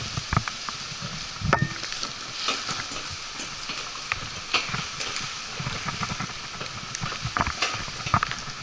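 Irregular scrapes, knocks and clicks of a tree climber's hands, boots and climbing gear against the bark of a dead oak trunk, over a steady hiss; the chainsaw is not running.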